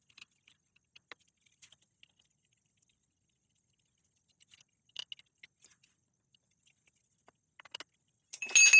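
Faint scattered metal clicks and ticks of tools working a bicycle kickstand's mounting bolt off the frame, then near the end a sudden loud metal clatter that rings on as the kickstand comes free.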